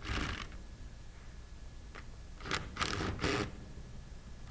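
A 3/8-inch-drive impact gun in short bursts, loosening the bolts that hold a metal diaphragm pump's suction manifold: one short burst at the start, a click near two seconds in, and a cluster of three or four bursts about a second later.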